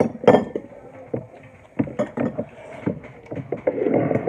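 Close-up eating sounds: irregular chewing and mouth noises with short knocks and clicks of utensils and dishes.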